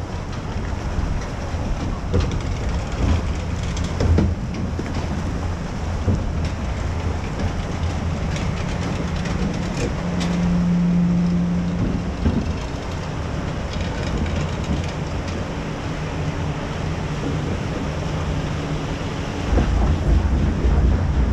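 Log flume boat running along its water trough with a steady rumble and clatter of water and hull, and a hum that swells for a couple of seconds about halfway. Near the end the boat reaches the lift hill conveyor and a louder low rumble sets in.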